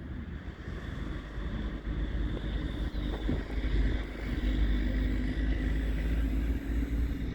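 A motor vehicle's engine drone that grows louder over the first few seconds and then holds steady, with a steady hum above it.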